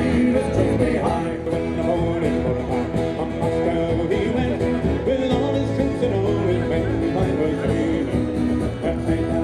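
Music with plucked string instruments, in a country or bluegrass style.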